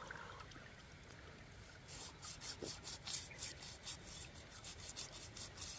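Large knife blade scraping the scales off a big fish, a quick run of short rasping strokes, several a second, starting about two seconds in.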